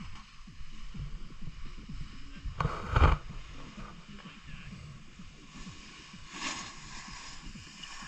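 Rumbling wind and handling noise on the camera's microphone, with a loud rustling knock about three seconds in and a smaller one about six and a half seconds in.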